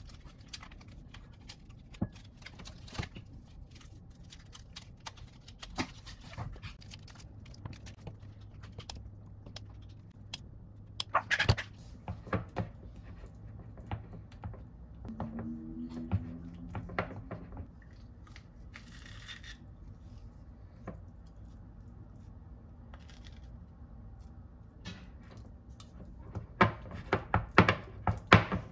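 A utensil scraping and tapping against a small ceramic bowl as softened butter is stirred and mashed, with scattered clicks and a quick run of taps near the end, over a low steady hum.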